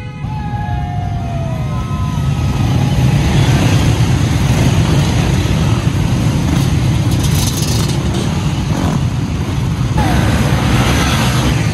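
A large pack of enduro motorcycles passing close by, many engines running and revving together in one dense, continuous noise that grows louder over the first few seconds.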